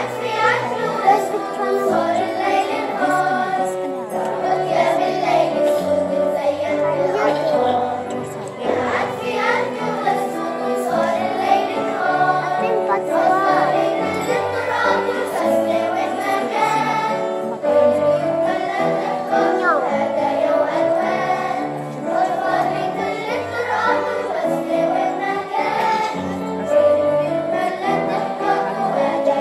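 Children's choir singing together, with a violin playing along and an instrumental accompaniment carrying low bass notes.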